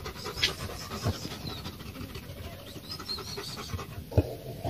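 German Shepherd panting with its mouth open, a steady quick run of breaths, with one short louder sound near the end.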